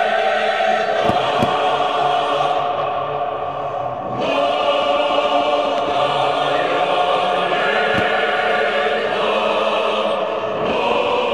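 Choir singing long held chords. The sound softens about three seconds in and the voices come back in full a second later.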